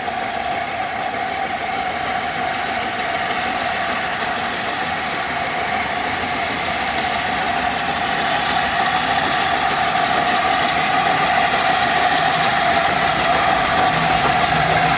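LNER A4 class steam locomotive hauling a passenger train as it approaches, a steady rushing sound that grows gradually louder.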